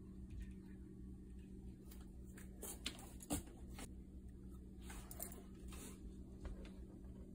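Faint handling sounds of a plastic container of broken chocolate bark: a few light clicks and rustles, mostly around three and five seconds in, over a low steady hum.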